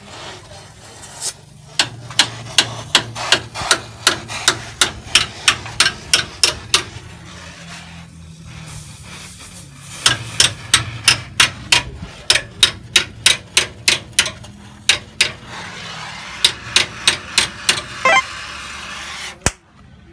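A hammer striking rapidly and evenly, about three to four blows a second, in three runs with short pauses between them. A low steady hum runs underneath.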